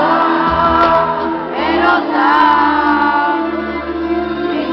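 Live Greek pop song played by a band through a stadium PA, with many voices singing the melody together: the crowd singing along with the singer.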